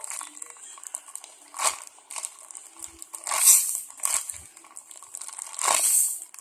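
Plastic crinkling and rustling as squishy toys are handled, in three louder bursts roughly two seconds apart with small clicks and rustles between.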